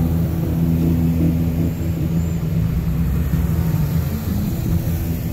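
Jeep Wranglers driving slowly past one after another, their engines running steadily at low speed.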